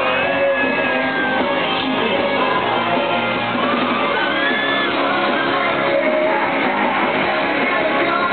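Live pop-rock band playing with amplified electric guitars and a singer, with fans screaming high over the music.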